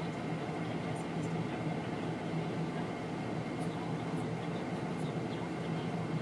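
Steady din of heavy diesel earthmoving machines (a Cat D6R crawler dozer, 972H wheel loader and 330C excavator) working together, with a steady low hum and scattered faint high ticks.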